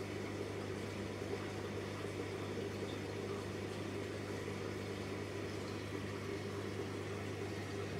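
Steady low electrical hum with an even hiss from running aquarium equipment.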